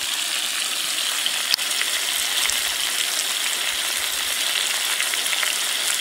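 Chicken breasts frying in oil in a cast iron skillet: a steady sizzling hiss with small crackles, and one sharp pop about one and a half seconds in.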